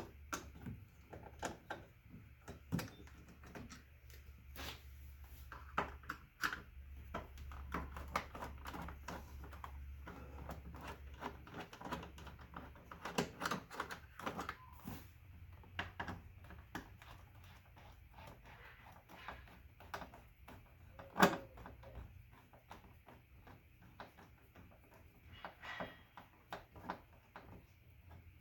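Screwdriver and screws clicking and scraping as the screws are backed out of a Jeep Cherokee XJ door panel: a run of irregular small clicks over a low hum, with one sharper knock about three-quarters of the way through.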